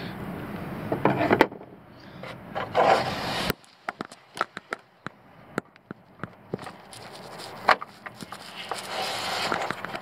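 Hand scraping and rubbing against the plastic headlight housing and fender liner of a pickup truck, working the turn-signal bulb socket loose. In the middle there is a run of small sharp clicks and taps, with further scrapes near the start and near the end.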